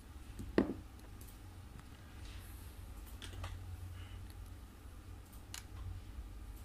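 Plastic clicks and one sharper knock as a hair trimmer's casing is handled and its trimmer head taken off, over a steady low hum.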